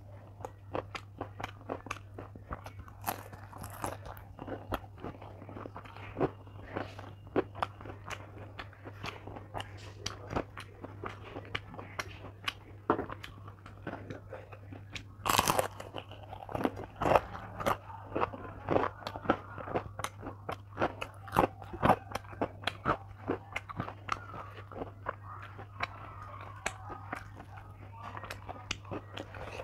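Close-miked biting and chewing of a crisp batter-fried bok phool (hummingbird-tree flower) fritter with rice, heard as many small irregular crunches and mouth clicks. One louder crunchy bite comes about fifteen seconds in. A steady low hum runs underneath.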